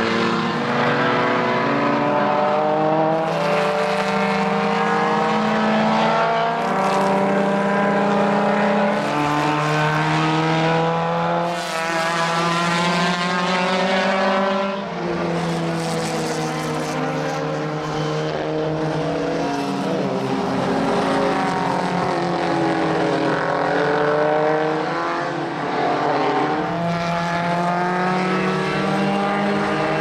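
Several historic single-seater formula racing cars driving past, their engine notes overlapping and repeatedly rising under acceleration and dropping at gear changes and braking.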